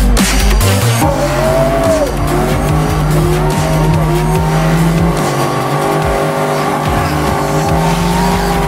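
Car engine held at high revs while the rear tyres spin and squeal in a burnout, the squeal wavering up and down in pitch.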